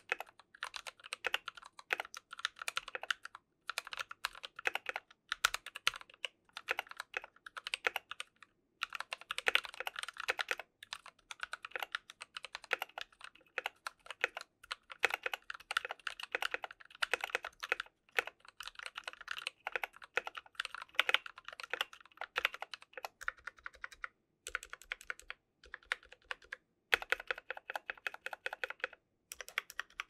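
Typing on a Monstargear Ninja 71 mechanical keyboard in a clear acrylic case, fitted with lubed NovelKeys Cream linear switches with TX switch films and lubed Cherry stabilizers. Runs of rapid keystrokes are broken by short pauses.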